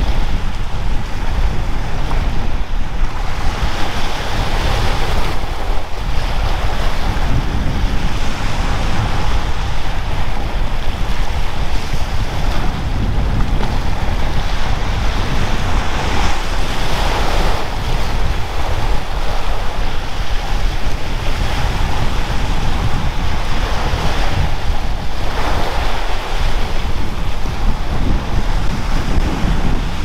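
Surf washing onto a beach, swelling every several seconds, with strong wind buffeting the microphone in a steady low rumble.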